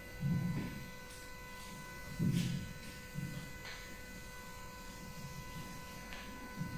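Cloth duster wiping a whiteboard: a few soft rubbing strokes and bumps, over a steady electrical hum.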